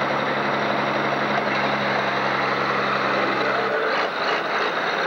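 Farm-stock pulling tractor's diesel engine running at low speed as the tractor drives off after its pull, over a loud, even background noise. A steady low hum in the mix stops about four seconds in.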